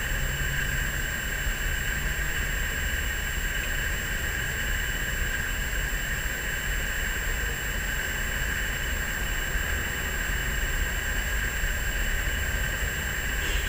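A steady, unexplained drone: a high, even whine held over a low rumble, unchanging throughout. It is the kind of night-time 'strange sound' the uploader is recording.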